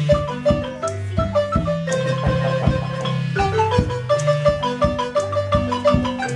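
Marimba music: a quick, even run of struck wooden-bar notes over a repeating low bass line.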